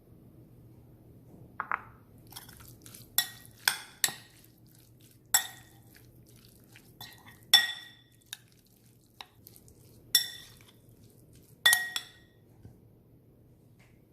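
Kitchenware clinking: about ten sharp knocks at irregular intervals, most with a short ringing tone, as in handling dishes and utensils while marinating meat.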